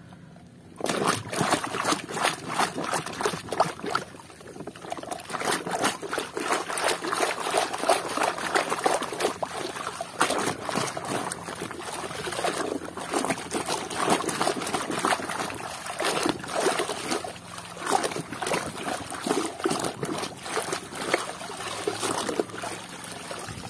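Water splashing and dribbling as a plastic toy truck is swished and scrubbed by hand in shallow muddy water, with many small knocks and clicks mixed in. It starts about a second in.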